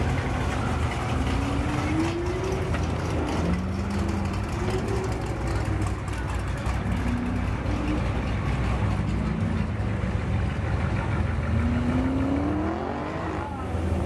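Drag-racing cars accelerating at a distance, their engine notes rising in pitch in several sweeps of about a second and a half, the strongest near the end, over a steady low rumble.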